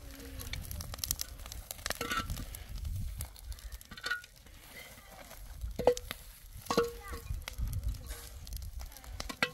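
Hollow concrete blocks being handled and set down on the ground and on each other, giving a run of scrapes and sharp knocks, the loudest about six seconds in and again a second later.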